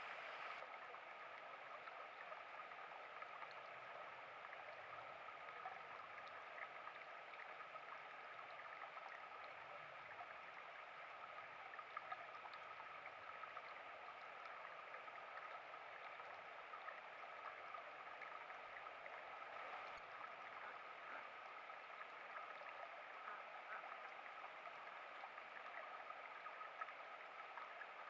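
Small stream (a burn) running steadily: a faint, even rush of water with a few tiny ticks in it.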